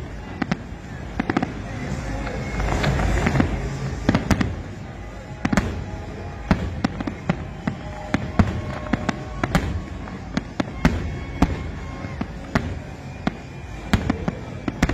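Aerial fireworks bursting: a long series of sharp bangs at uneven intervals, sometimes several close together, over a continuous rumble and crackle.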